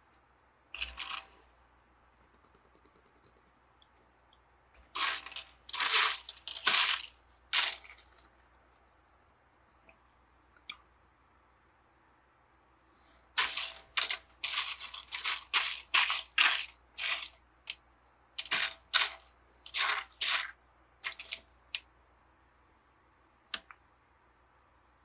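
Small plastic Lego pieces clattering and clicking as hands rummage through sorted parts, in several runs of quick rattling clicks with a few single clicks between.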